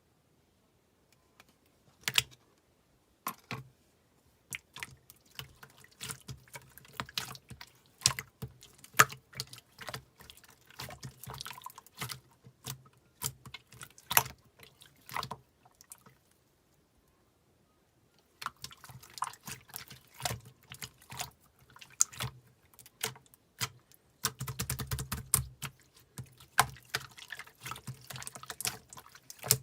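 Slime being squished and poked by hand, making irregular wet clicks and small pops, with a pause of about two seconds midway and a denser squelching run near the end.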